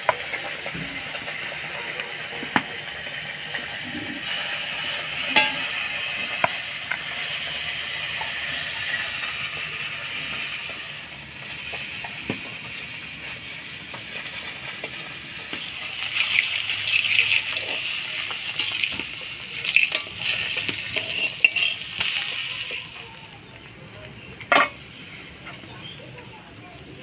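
China puti fish sizzling as they fry in hot oil in a wok, with a few sharp clinks of a metal spatula against the pan. The sizzling drops off near the end.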